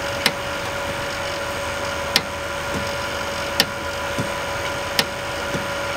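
Refrigeration vacuum pump running steadily with a constant hum, pulling a mini-split's refrigerant line down to deep vacuum, near 500 microns. Four sharp metallic clicks come about a second and a half apart as the ball valves on the line are turned by hand.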